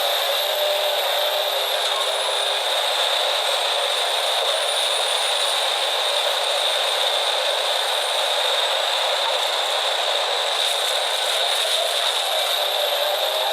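Machinery running steadily with a constant rattle and a high whine, with no change in pace or load.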